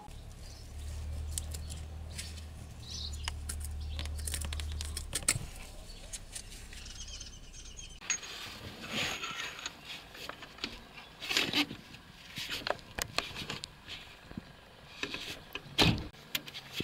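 Socket wrench with an extension being worked on the bolt of an air-conditioning hose fitting: irregular metallic clicks and scrapes of the tool on metal, with a sharp knock near the end. A low hum sits under the first few seconds.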